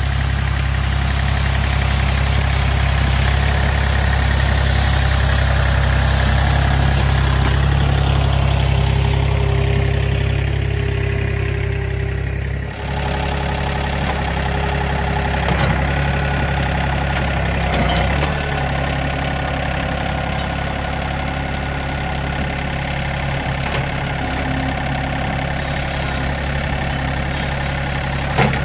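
John Deere 3025E compact tractor's three-cylinder diesel engine running steadily under work, with a few short sharp knocks in the second half.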